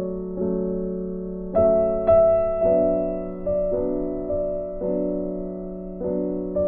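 Soft background piano music: chords struck every half second to a second, each ringing and fading before the next.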